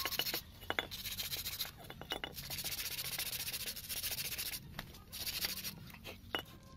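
Sandpaper rubbed by hand over a painted water pump housing, in quick strokes of hiss broken by short pauses, with a few small ticks.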